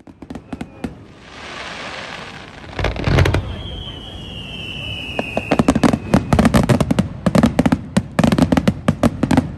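Fireworks display: scattered crackling and hiss, heavy booms about three seconds in, a whistling shell whose tone falls slightly in pitch, then a fast run of bangs near the end that cuts off abruptly.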